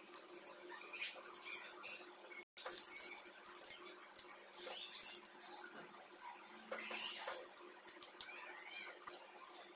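Steel spoon scraping and tapping as it spreads chutney over a dosa on an iron tawa: faint, irregular scrapes with short squeaky strokes. The sound drops out for an instant about two and a half seconds in.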